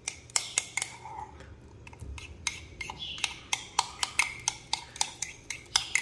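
Spoon clicking and scraping against a container while stirring a thick bird hand-feeding mash mixed with water; irregular sharp clicks, scattered at first and coming quickly from about halfway in.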